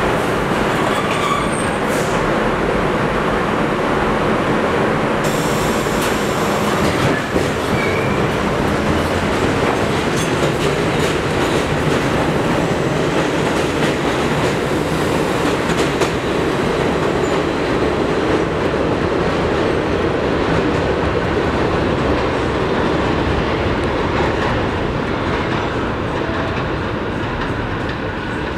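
R32 subway train pulling out of the station and running past, a steady loud train noise that eases off over the last few seconds as the last cars leave.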